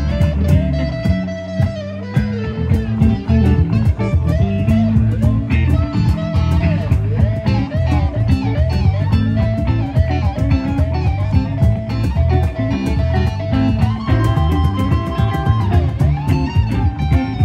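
Blues-rock band playing an instrumental passage: a lead electric guitar line with bent notes over bass guitar and drums.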